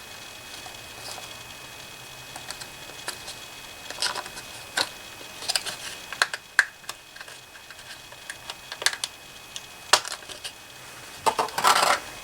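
Scattered small plastic clicks and ticks from a DDR3 SODIMM RAM module being taken out of its packaging and handled, with a denser crackling cluster near the end.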